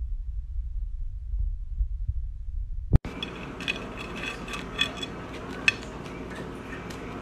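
A low, muffled rumble with uneven pulses. After a sudden cut about three seconds in, a few light clicks and clinks as a cat's paw and claws reach onto a plate of french fries.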